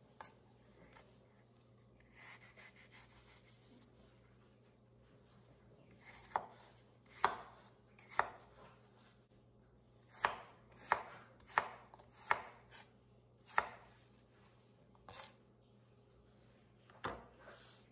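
Chef's knife dicing peeled apple on a bamboo cutting board, each cut a sharp chop through the fruit onto the wood. The chops come singly and unevenly at first, then in a quicker run of about six in the middle, with two more near the end.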